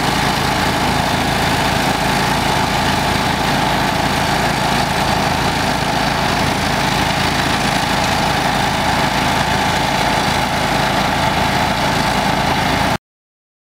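Engine on a wildland brush fire truck running steadily at a constant speed, driving the water pump that feeds the hose line. It cuts off suddenly near the end.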